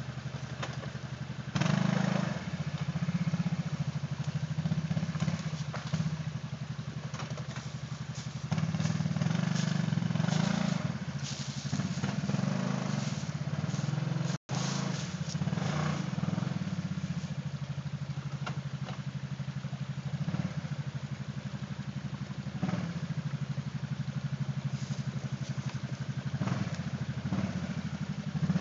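ATV engine running at low speed, revving up in repeated bursts as the quad crawls over rocks. The sound cuts out for an instant about halfway through.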